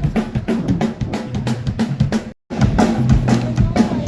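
Live band playing at a sound check: a drum kit drives a busy beat of kick, snare and rimshot hits with bass notes underneath. The sound cuts out completely for a split second about two-thirds of the way through.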